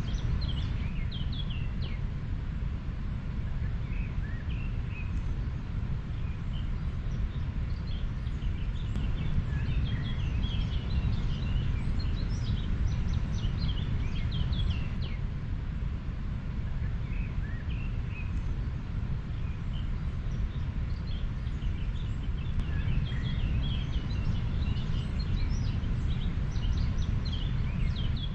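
A river flowing, heard as a steady low rumble, with birds chirping in many short, high calls throughout.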